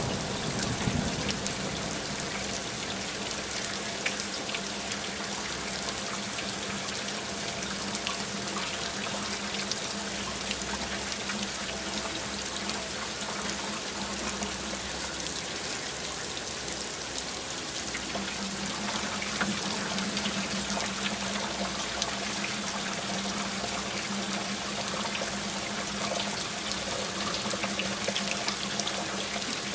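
Steady rain falling, with fine scattered drop ticks; the tail of a thunder rumble fades out in the first second.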